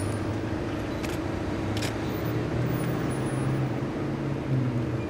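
Steady rumble of street traffic and running vehicles, with two sharp clicks about one and two seconds in, likely press camera shutters.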